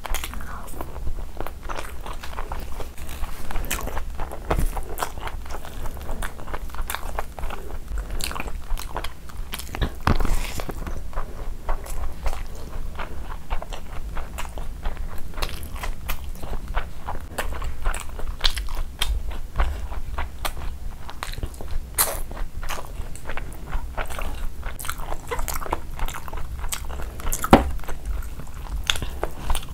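Close-miked eating: steady chewing and biting of chicken curry and rice eaten by hand, with wet mouth sounds and many small, sharp crunches and clicks.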